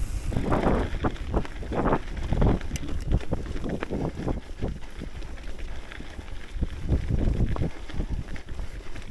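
Wind buffeting the microphone as a hardtail mountain bike is ridden fast down a dirt trail, with tyre noise and irregular clicks and rattles from the bike over bumps.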